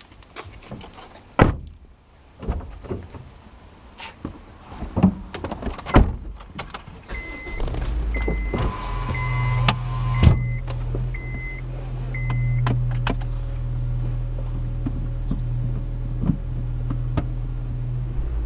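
Clicks and knocks inside a Honda Civic's cabin, then a dashboard chime beeping about once a second while the engine cranks and starts about nine seconds in. The engine settles into a steady idle.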